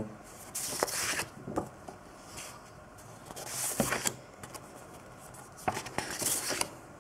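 Sheets of patterned craft paper being lifted off a stack and turned over, a dry papery swish with small edge taps, three times: about a second in, around four seconds, and a little past six seconds.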